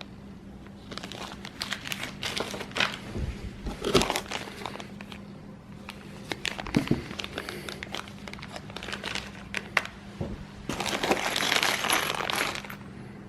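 Packaging crinkling and rustling as kit parts are handled, with scattered clicks and a knock about four seconds in, and a longer stretch of dense crinkling near the end.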